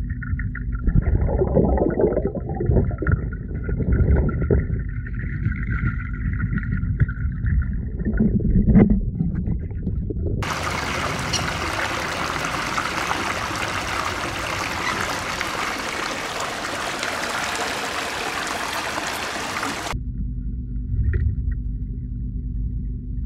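Pond water heard through a submerged action camera: a muffled, low rumble and gurgle, with a sharp knock about nine seconds in. About ten seconds in it changes to the open, full-range noise of running water, and near the end it goes back to the muffled underwater sound.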